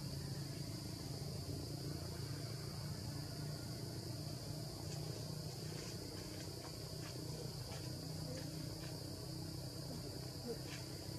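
Steady high-pitched drone of forest insects, with a few faint clicks in the middle.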